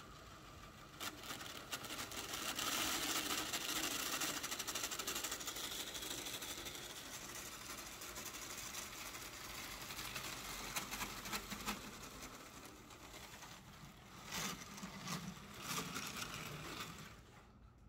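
Battery-powered LEGO train motor whirring, with plastic wheels clicking rapidly over the track, as the locomotive drives a long train of cars in reverse. It picks up about two seconds in, eases off in the second half and stops shortly before the end.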